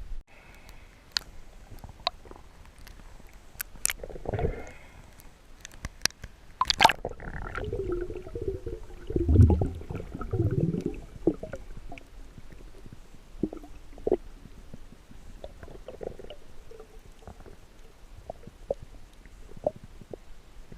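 Muffled, sloshing and gurgling water sounds as heard underwater, with scattered sharp clicks and knocks. A louder wavering swell comes in about eight to eleven seconds in.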